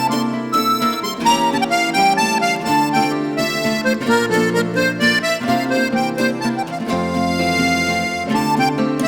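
Instrumental background music: a melody line over held chords and bass notes.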